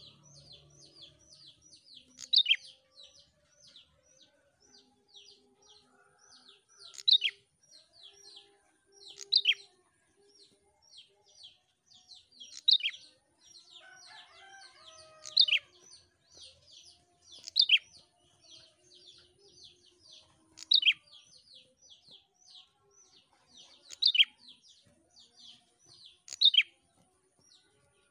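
Caged prenjak singing vigorously: a long, unbroken run of short, high chirps at about four a second, with a louder, sharper chirp every two to three seconds.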